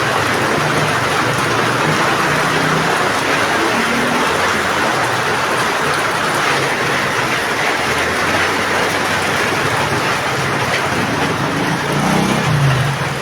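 Heavy rain falling steadily, a dense, even hiss with no letup, and a brief low swell near the end.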